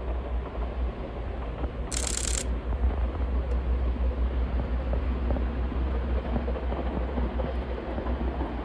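Wind buffeting the microphone with a steady low rumble, over the distant running of a Ffestiniog Railway train. A brief hiss comes about two seconds in.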